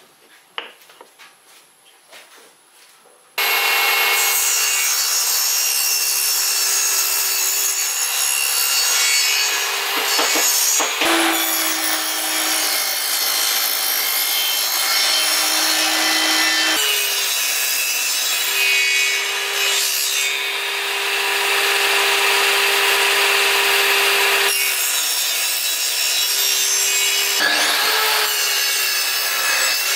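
Table saw starting up a few seconds in and running while wooden blocks are fed through it on an angled sled, the blade cutting a groove along each block. The saw's steady hum dips lower twice as the blade takes the load of the cut.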